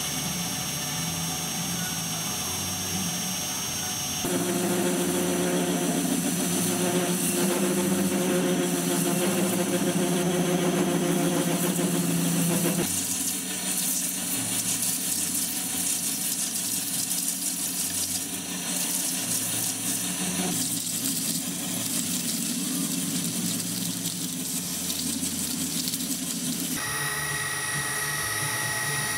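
Metal lathe running and cutting a large round metal part, the steady machine hum changing abruptly several times. Near the end, a milling machine running an end mill through an aluminium ring, with a higher steady whine.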